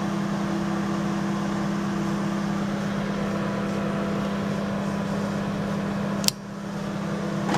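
1980 Sharp Carousel II microwave oven running on its cook cycle with its repaired magnetron: a steady mains hum with fan noise. About six seconds in there is a sharp click, and the hum drops quieter, then slowly builds again.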